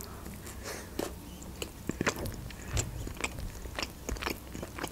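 A person biting into and chewing an open sandwich of bread topped with red fish, close to the microphone: irregular soft clicks of the mouth and bite.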